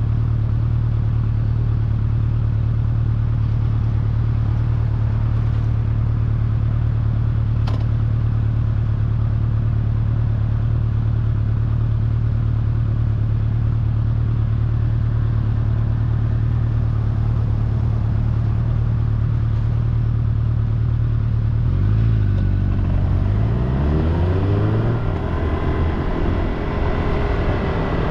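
Road vehicle engine running at a steady speed with a constant low hum. About 22 seconds in, the pitch dips and wavers, then climbs over a few seconds.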